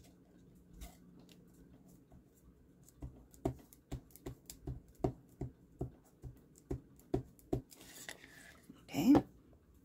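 A clear embossing-ink dauber tapped repeatedly onto a paper cut-out, a dozen or so light taps at about three a second. Near the end comes a brief hiss and then one short louder sound.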